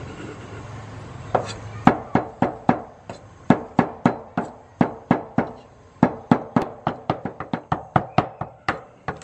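A cleaver mincing food on a thick round wooden chopping board: a string of sharp chops, about three or four a second. The chopping starts about a second and a half in and quickens near the end.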